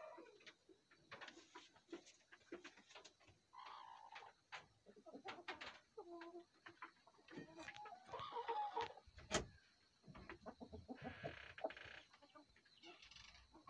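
Broody hen on her nest giving faint, short clucks among scattered clicks and rustles; one sharp click a little after the middle is the loudest sound.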